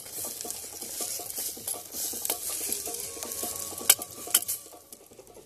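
A wooden spoon stirring chilli in a stainless steel camping pot, scraping round the pot and knocking sharply against its side a few times, the loudest knock about four seconds in. Under the stirring the hot food sizzles.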